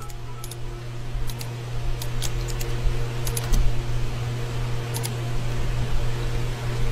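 Scattered clicks of computer keyboard keys and a mouse as a web search is typed and run, over a steady low hum.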